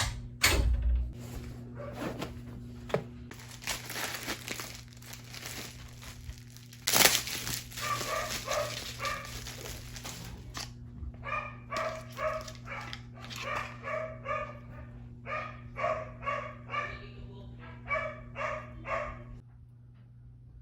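A small dog barking over and over in short, quick yaps for about twelve seconds, after a stretch of rustling and a sharp clatter, with a steady hum underneath.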